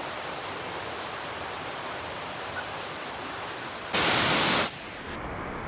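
Steady rush of a waterfall. About four seconds in, a brief loud burst of noise lasting under a second covers it, after which the sound turns duller.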